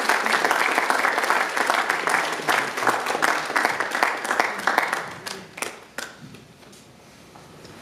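Audience applauding, the clapping thinning to a few scattered claps about five seconds in and then dying away.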